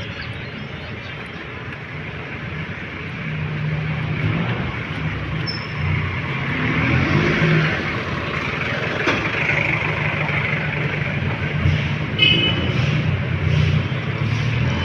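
Passenger jeepney's diesel engine running as it drives past at low speed, a low engine hum that builds after a few seconds, over general street traffic noise.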